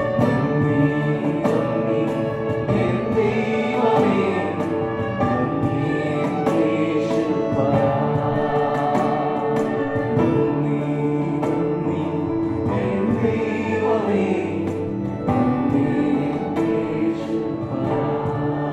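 Christian worship music: a choir singing over instrumental accompaniment.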